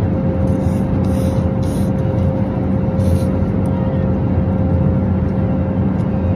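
Steady airliner cabin noise in flight: a loud, even rushing drone with a constant low hum running under it.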